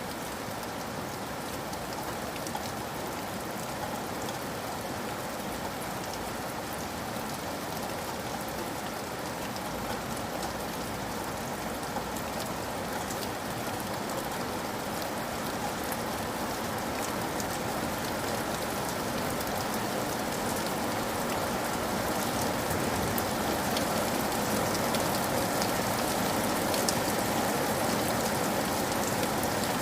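Steady rain pattering on a roof, a dense patter of individual drops over an even rushing hiss, slowly growing louder.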